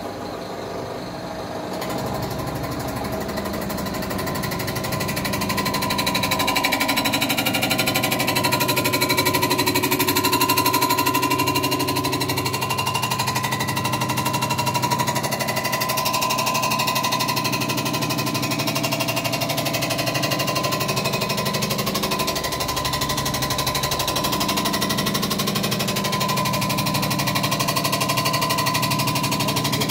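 Block surfacing machine decking a Nissan RB30 cylinder block: the cutter head runs steadily with a fast, even chatter and a steady whine, getting louder over the first several seconds as the cut gets going.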